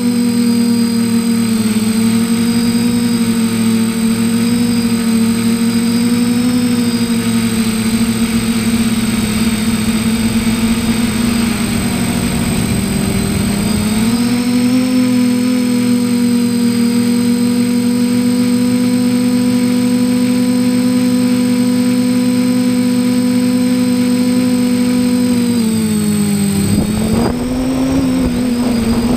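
Small drone's electric motors and propellers whirring in flight, a loud steady hum whose pitch sags and recovers about halfway through and again near the end as the throttle changes.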